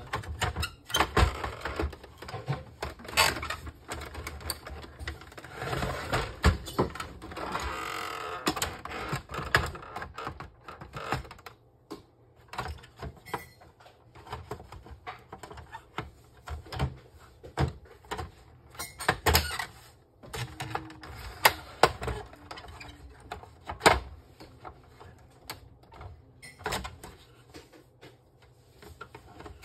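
Irregular clicks, knocks and rattles of plastic parts as an Epson L3150 inkjet printer is taken apart by hand and with a screwdriver, its ink tank unit being freed from the body. A sharp knock about 24 seconds in is the loudest.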